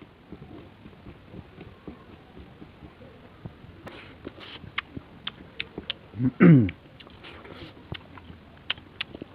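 Close-up eating sounds: chewing and crisp clicking bites of fried bitter gourd, with small mouth clicks coming thicker after about four seconds. About six and a half seconds in, the loudest moment is a short voiced sound from the eater that falls in pitch.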